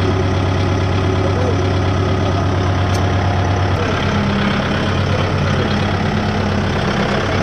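Kubota MU5501 4WD tractor's four-cylinder diesel engine running steadily. Its note changes about four seconds in, as a higher tone joins when the tractor pulls away; there is a single sharp click shortly before.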